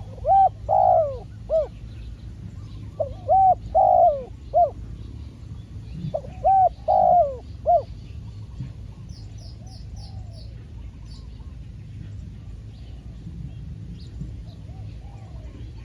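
Spotted dove cooing: three phrases of about four coos each, roughly three seconds apart. Faint high chirps of another bird come about nine seconds in, and fainter coos follow near the end.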